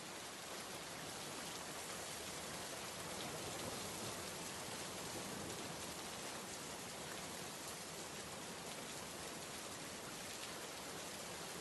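Steady rain falling in a conifer forest: an even hiss that does not let up.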